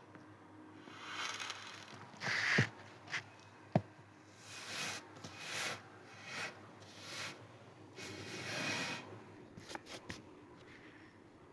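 Kinetic sand being sliced and crumbling: a run of short soft swishes and crunches, with two sharp taps in the first few seconds and a few quick clicks near the end.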